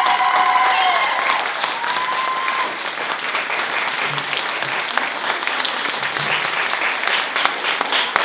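Audience applauding, with high drawn-out calls from the crowd over it in the first second or so and again around two seconds in. Near the end the clapping settles into a quick, even rhythm.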